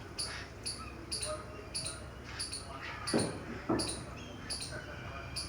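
Small birds chirping: a short high chirp repeats about twice a second, with two louder, lower calls a little past halfway.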